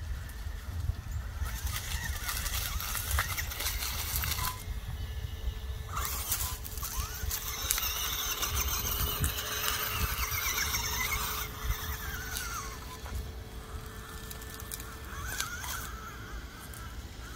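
RC rock crawler with a Castle 2280kv Slate brushless motor driving over rocks and dry leaves: a thin motor and gear whine that rises and falls with the throttle, over stretches of crackling from the tyres on the ground litter.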